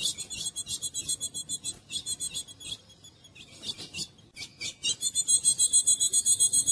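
Female ultramarine grosbeak (azulão) giving a fast run of short, harsh, high-pitched chattering calls. The calls thin out briefly in the middle and come back denser and louder about five seconds in.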